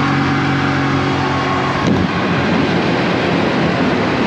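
Tuk-tuk engine running as it drives. About two seconds in there is a knock, and the steady engine note turns rough and uneven as the tuk-tuk labours over a bump up into a roadside lookout.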